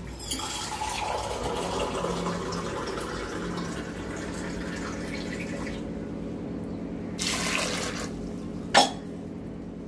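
Water running into a steel pressure cooker pot over soaked dried peas and whole potatoes, filling it for boiling. Near the end there is a brief rush of noise and then a single sharp knock.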